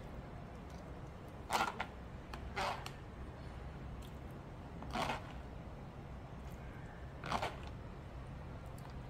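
Four short scrapes and crinkles of a metal spoon against a plastic tub and bowl, as green vegetable puree is poured over chopped vegetables and stirred, over a steady low hum.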